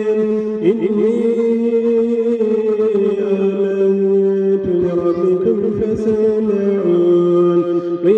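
Chant-like music: a slow, held melody with quick ornaments over a steady low drone, its pitch stepping down now and then.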